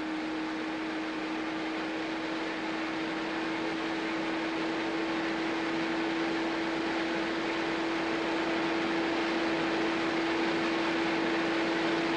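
Open wind tunnel running up to speed: a steady hum over a rushing hiss of air, slowly getting louder and a little higher in pitch as the airspeed rises toward 100 miles an hour.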